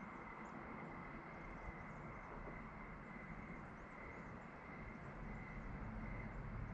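Faint outdoor ambience: a steady hiss with a thin high-pitched whine, and a low rumble that grows louder near the end.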